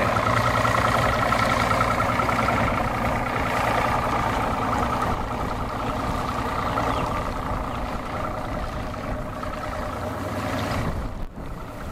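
Mercury OptiMax 250 two-stroke V6 outboard running at low speed as the bass boat idles away from the dock, slowly growing fainter as it moves off. Wind buffets the microphone.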